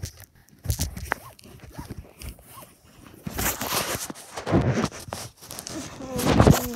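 Handling noise from the phone's microphone: rustling and bumps as the phone is moved among plush toys and pressed against them. The rustling gets thicker about halfway through, and a short pitched sound comes right at the end.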